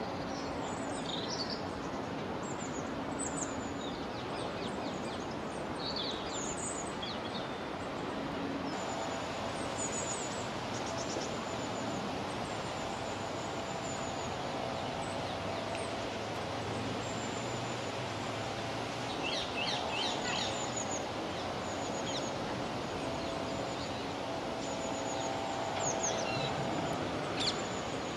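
Steady outdoor background noise, with small songbirds giving short high chirps now and then throughout. A faint droning hum comes in about a third of the way through and fades out near the end.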